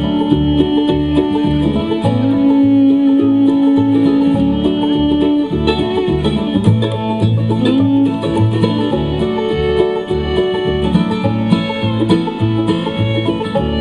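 Instrumental break in a country-bluegrass song: plucked strings over a bouncing, alternating bass line, with a long held melody note above.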